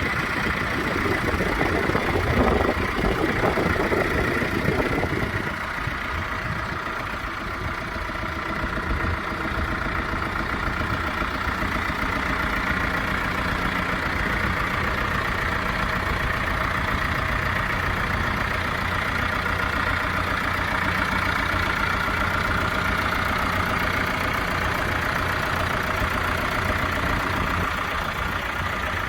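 John Deere 2750 farm tractor's diesel engine running at idle, steady throughout, a little louder for the first five seconds or so.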